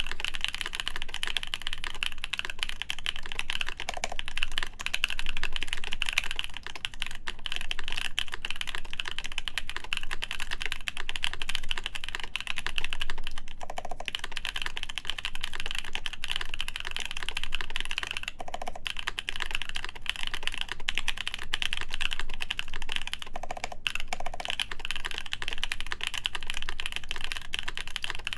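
Steady, fast typing on a Haytco CAKE60 mechanical keyboard with lubed Epsilon switches in a full acrylic plate, under GMK keycaps: a dense run of key clicks with a few short pauses.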